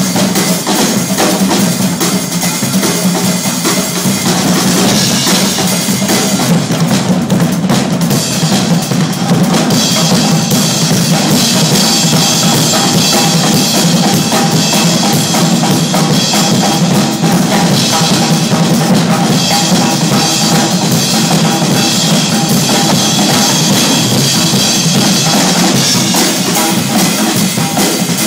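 Live percussion from a group of drummers playing a dense, continuous rhythm with bass drum, snare and rimshots. The bright cymbal hiss thins out for a few seconds about seven seconds in, then returns.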